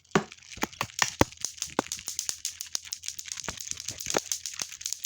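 Hard plastic fidget toy being handled and tried out: a dense run of irregular clicks and rattles, with a few sharper knocks.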